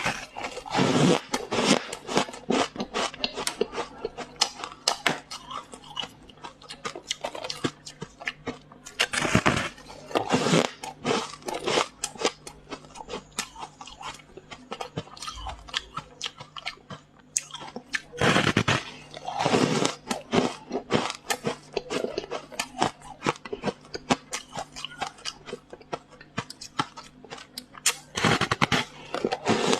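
A person biting and chewing frost ice close to the microphone: steady crackly crunching, with louder pairs of crunching bites about every nine seconds.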